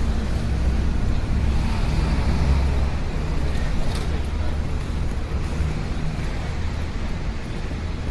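City street ambience: steady traffic rumble from passing cars and buses, with faint scattered clicks and background voices.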